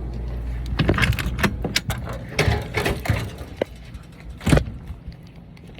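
A run of light clicks and clattering, then one sharp knock about four and a half seconds in.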